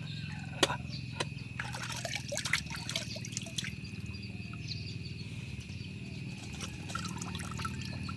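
Close-up mouth sounds of raw garlic being chewed: sharp crunches, then a run of small wet crackling clicks that thins out, over a steady high-pitched tone and a low hum.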